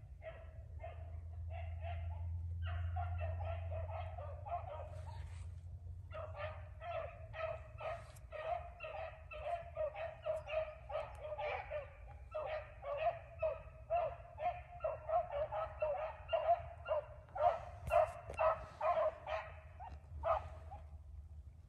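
A pack of beagles baying on a rabbit's track, in full cry: a quick, continuous run of bay and yelp notes from several dogs, with a short pause about five seconds in, then growing denser and louder in the second half. A low steady rumble runs underneath, strongest a few seconds in.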